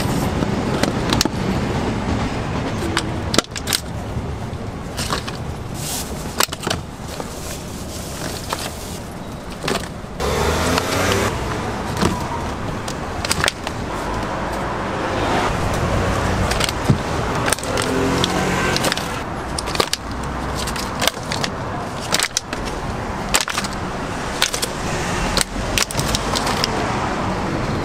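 Plastic fruit cups with domed lids clicking and clattering against each other as they are handled and packed into a chest freezer, in many sharp, irregular knocks over a steady low traffic rumble.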